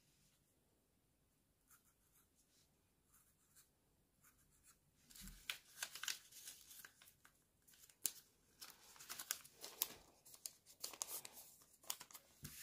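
Kraft paper being handled and torn: a run of sharp, crackly rustles and rips starting about five seconds in, after a few faint marker-on-paper scratches at first.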